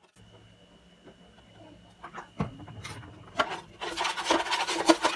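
Pastry brush scrubbing oil across the bottom of a metal baking pan: rapid scratchy rubbing strokes that begin a little past halfway. Before that, only a few light taps and handling.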